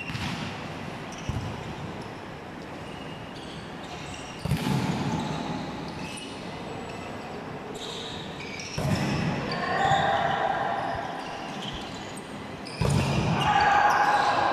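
Volleyball rally in a large echoing hall: about five sharp hits of the ball a few seconds apart, each ringing off the hall, with players shouting calls over the later hits.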